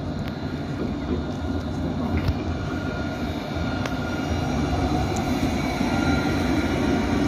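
Tram rolling past at low speed on wet rails: a steady rumble that grows slightly louder as it nears, with a faint high whine on and off.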